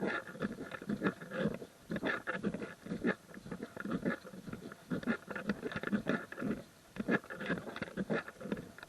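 Footsteps of walking hikers on a trail, a steady crunching tread of about two steps a second.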